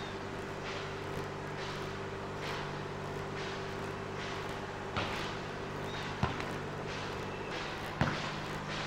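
Volleyball being struck and bouncing on a concrete court: three sharp thuds about five, six and eight seconds in, over a steady hum.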